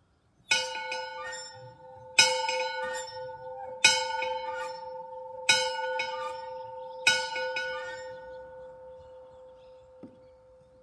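Ranch dinner bell rung five times, about a second and a half apart, each stroke ringing on and the tone slowly dying away after the last. It is the signal calling the ranch hands in for dinner.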